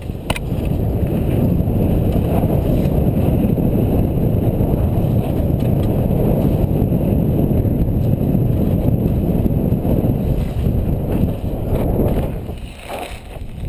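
Wind and trail rumble on a helmet-mounted action camera as a Specialized Big Hit downhill mountain bike is ridden fast down a dirt trail. The steady, loud rush with tyre and frame rattle eases off near the end.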